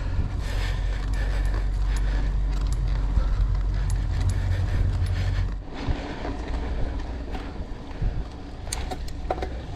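Mountain bike rattling and clicking over a rough trail, its metal parts jingling, with wind rumbling on the microphone; the wind rumble drops off a little over halfway through.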